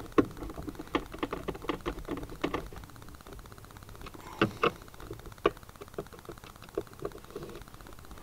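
Plastic center console trim of a Mitsubishi Lancer Evolution clicking and knocking as it is handled and pressed into place: a quick, irregular run of light clicks, then a few sharper knocks spaced a second or so apart.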